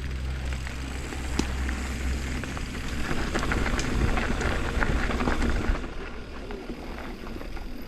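Low rumble of wind buffeting the microphone. About three seconds in comes a spell of dense crunching and rattling clicks, which stops suddenly near six seconds.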